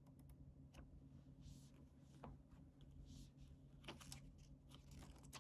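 Faint paper rustling and light clicks as a memo pad is handled, its sheets lifted and flipped, with a few soft swishes of paper among the taps.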